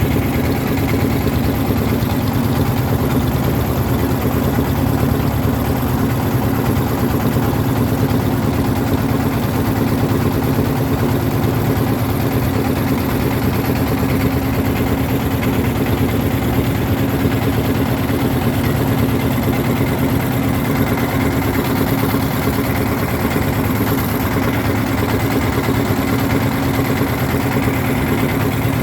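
Motor boat's engine running steadily, with an even hum that holds at one pitch throughout.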